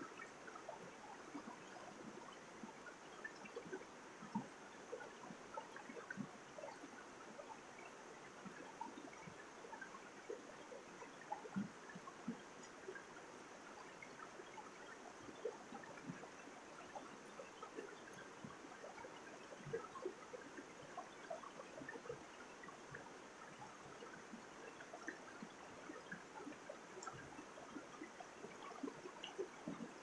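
Mountain stream flowing over boulders in small cascades: a steady wash of water with many small gurgles and splashes throughout.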